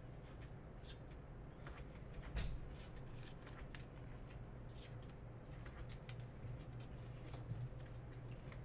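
Trading cards being handled and slid against one another: scattered soft clicks and rustles, with one louder knock about two and a half seconds in.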